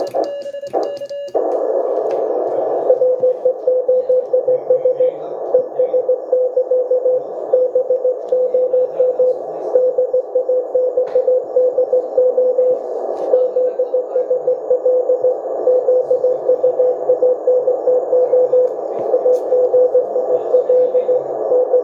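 Elecraft K1 QRP transceiver's speaker playing a received Morse code (CW) signal: a single tone near 500 Hz keyed in dots and dashes over steady receiver hiss. In the first second the rig's own sidetone keying ends and the hiss comes up as it switches to receive.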